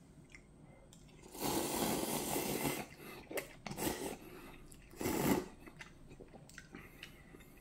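Instant ramyeon noodles slurped from chopsticks: a long loud slurp about a second and a half in, two short ones just after, and another near five seconds, with quiet chewing between.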